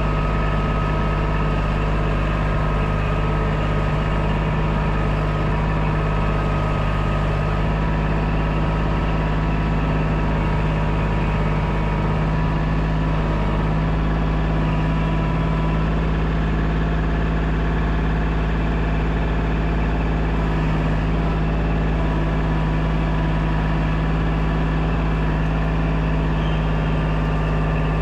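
Kubota compact tractor's diesel engine running steadily at a constant speed.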